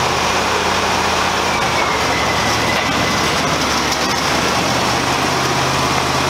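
Wood-Mizer hydraulic portable band sawmill running, its engine holding a steady pitch with the band saw noise over it as the sawhead travels along the log.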